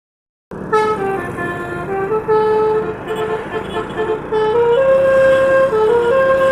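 Jumbo basuri telolet horn, a multi-tone vehicle horn, playing a tune of held notes that step up and down every few tenths of a second. It starts suddenly about half a second in, over a low steady rumble.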